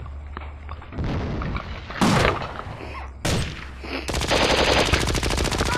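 A toy blaster firing: two short bursts, then a rapid, evenly spaced automatic string of shots lasting a couple of seconds from about four seconds in.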